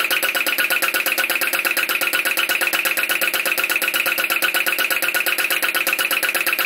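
PM Research Solar Engine No. 3 flame-licker (vacuum) engine running steadily once warmed up, giving a fast, even beat.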